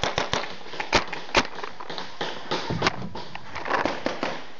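Paintball markers firing: an irregular string of sharp pops, some close and some farther off, with two louder shots about one and one and a half seconds in.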